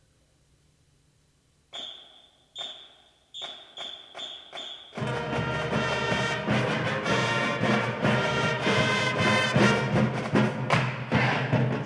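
A sports pep band starts a piece. After a quiet moment there are six sharp, ringing percussion hits that come faster and faster, and about five seconds in the full band comes in loud, with heavy drums and brass.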